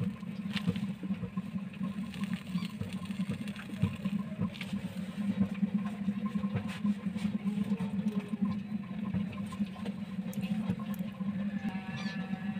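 Steady low hum with scattered light clicks and taps.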